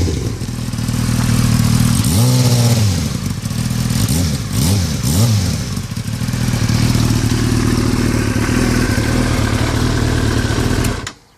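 2003 Yamaha R6's inline-four engine revved in short blips about five times, then idling steadily with a rattle that the owner is unsure is normal. It cuts off suddenly near the end.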